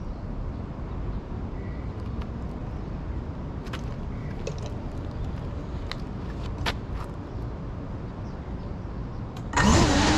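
Low steady rumble with a few light taps. About half a second before the end, the GEPRC CineLog 35 quadcopter's brushless motors spin up into a loud, rising whine as it lifts off.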